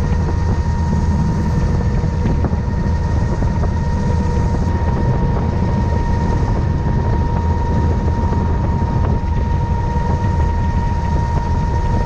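Helicopter in flight heard from aboard: a steady, loud rotor and engine din, deepest in the low end, with a constant high whine running over it.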